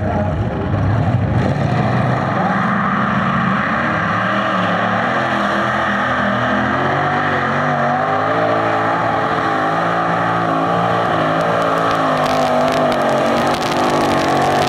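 Light Modified class pulling tractor's engines running flat out under load as it drags a weight-transfer sled down the track, a loud, steady engine note whose pitch wavers slightly.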